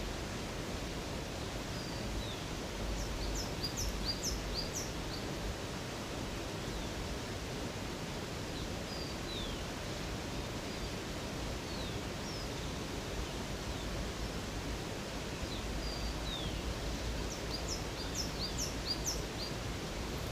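Steady rush of running water from a river or waterfall, with small birds singing high, short chirps over it; a quick run of rapid notes comes a few seconds in and again near the end.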